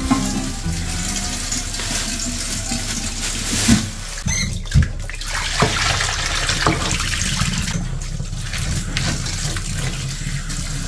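Kitchen tap running into a stainless-steel sink while shrimp and squid are rinsed in a metal colander, with a few sharp knocks of the colander around the middle.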